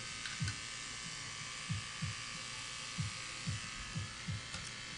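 Electric hair clipper fitted with a triple-O blade buzzing steadily as it shaves a head down to the scalp, with short low thumps every half second or so.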